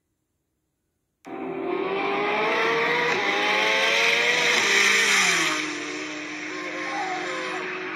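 Silence, then high-powered car engines cut in suddenly at full throttle in a drag race between a Corvette Z06 and a heavily tuned Nissan GT-R. The engine notes rise in pitch for a few seconds, then drop about four seconds after coming in and run on at a lower, steadier pitch.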